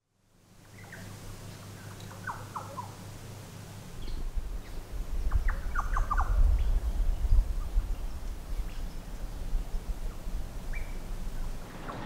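Outdoor ambience with birds giving short, scattered chirps over a steady low hum. About four seconds in, an uneven low rumble of wind on the microphone comes in and stays.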